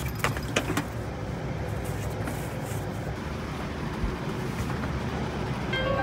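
Steady low rumble, with a few clicks and knocks of plastic tool cases being handled in the first second. Plucked-string music comes in near the end.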